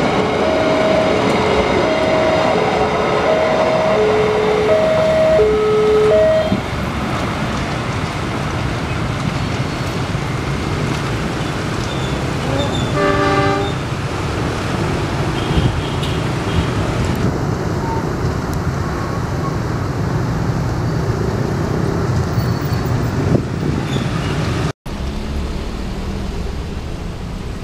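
Diesel-hauled freight train of hopper wagons rumbling past, with a level-crossing warning alarm chiming two alternating tones for the first six seconds and again near the end. About 13 seconds in, a short train horn blast.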